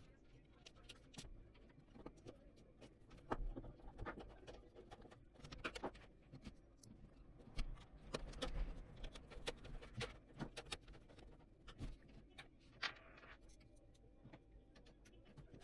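Irregular light clicks, taps and knocks from PC hardware being handled, scattered unevenly with short quiet gaps between them.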